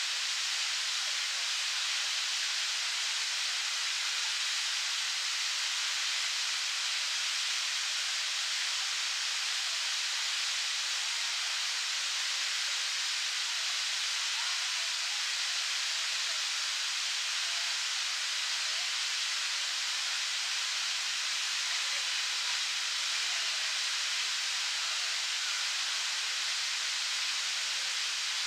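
Park fountain's central jet spraying and falling back into its basin: a steady, even splashing hiss of water.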